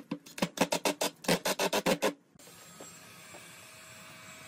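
Cordless impact driver hammering in quick bursts as it drives a screw into a pine block, stopping about two seconds in. Then a heat gun's blower hisses steadily with a faint whine.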